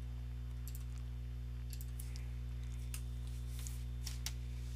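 A handful of scattered computer mouse clicks over a steady low hum.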